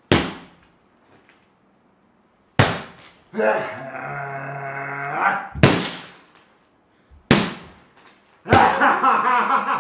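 Five loud slams, a second or two apart, each ringing on briefly in the room. Between the second and third, a man's drawn-out vocal cry lasts about two seconds, and he vocalises again from the last slam on.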